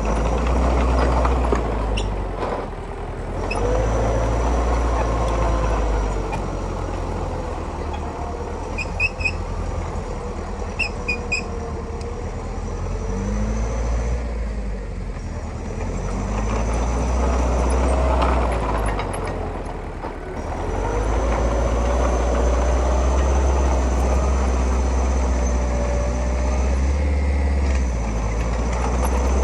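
Heavy diesel construction machinery working: a deep engine rumble that swells and eases several times under load, with gliding pitches above it. Short clusters of high beeps sound about nine seconds in and again about two seconds later.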